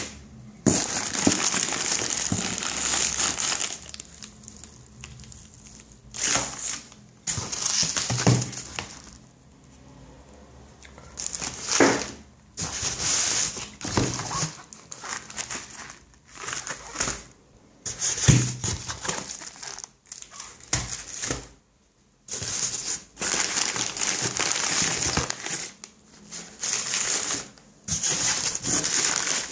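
Packaging being handled and unwrapped: stretches of crinkling and rustling of wrapping, starting and stopping every few seconds, with a few sharper knocks among them.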